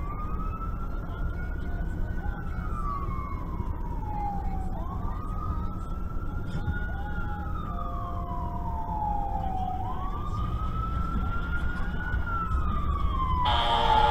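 Fire truck siren wailing, rising slowly and falling about every five seconds, heard from inside a car over a steady low engine and road rumble. Near the end a loud blaring horn blast joins the siren.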